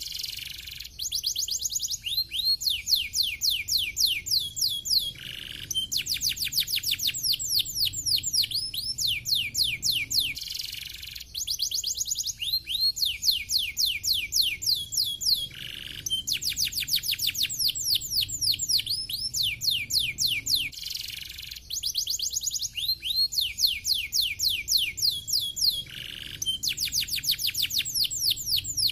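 Domestic canary singing: long, fast trills of quick sweeping notes, broken every few seconds by short pauses and a brief buzzy roll.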